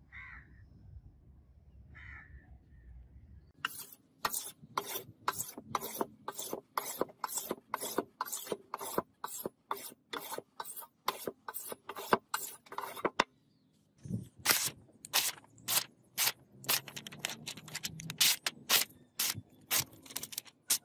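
A whetstone rubbed along a sword's steel blade in quick, even strokes, about two to three a second. After a short pause, a run of irregular crisp slicing sounds follows as the sharpened blade cuts through sheets of paper.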